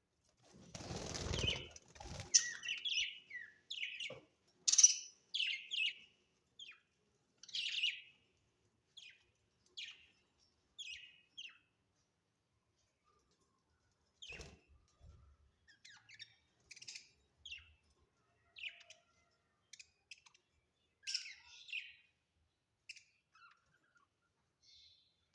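Budgerigars chirping in short, separate calls, with a pause of a couple of seconds midway. A brief rustling burst comes near the start, and a sharp click about halfway through.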